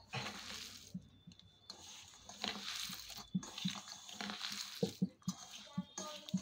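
A hand mixing and kneading cooked rice with chopped onion and coriander leaves in a stainless steel bowl: an uneven run of rustling, squishing strokes with a few soft knocks against the bowl.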